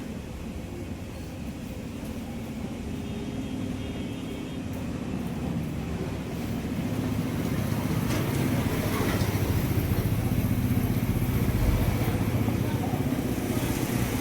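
An engine running steadily, growing louder about halfway through.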